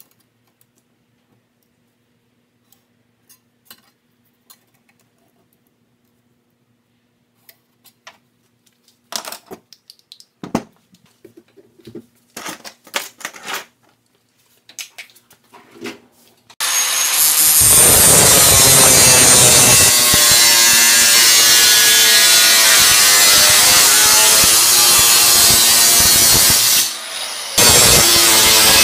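A few light knocks and handling noises, then, about two-thirds of the way in, a corded angle grinder starts cutting a thin metal sheet: a loud, continuous, high-pitched grinding that dips briefly near the end and then carries on.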